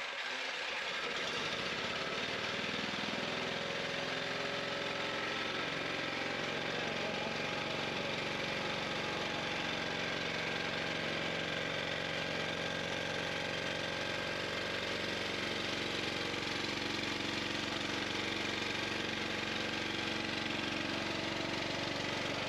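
Carburetted engine of the Thunderstorm Generator prototype, just started and running steadily at idle.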